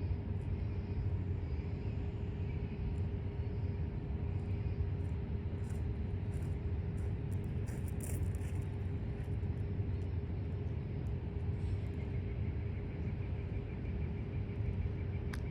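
Steady low engine rumble with a constant hum. Near the end a faint, rapid ticking at a higher pitch joins it.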